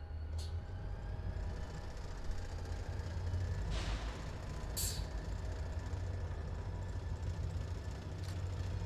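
Diesel-electric freight locomotive engine running steadily with a low rumble. About four seconds in there is a short hiss of air, followed a second later by a brief, sharper hiss.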